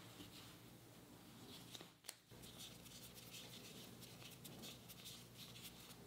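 Near silence with faint soft rustles and light ticks as hands take a thin dumpling wrapper off a stack and stretch it.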